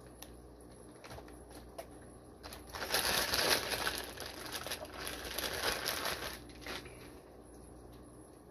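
Plastic fish shipping bags crinkling and crumpling as they are handled, for about three seconds in the middle, with a few light clicks before and after.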